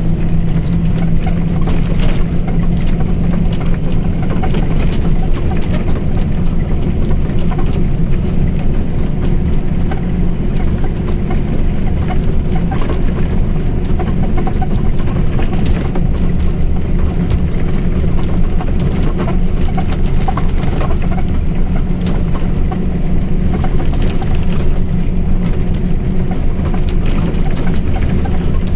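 Mercedes-Benz OF-1722M bus under way: its diesel engine and rear differential running steadily, a low drone with a steady tone over it, with frequent light rattles and clicks.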